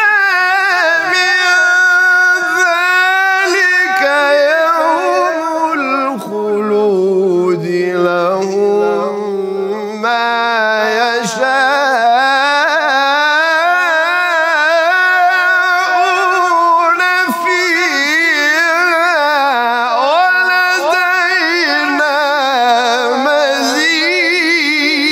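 A man reciting the Quran in melodic tajweed style, drawing out long ornamented notes with a wavering pitch. The voice starts high, drops lower about a quarter of the way in, then climbs back up.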